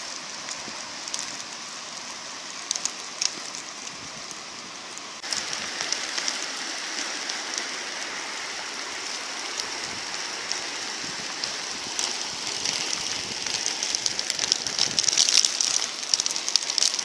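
Steady rain: an even hiss with scattered sharp ticks of drops. About five seconds in it jumps louder and nearer.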